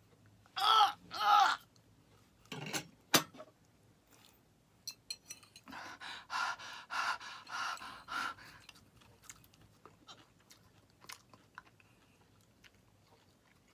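Two short groans, then a woman chewing a boiled silkworm pupa (beondegi) while breathing hard and fast through her mouth in disgust, with scattered small mouth clicks.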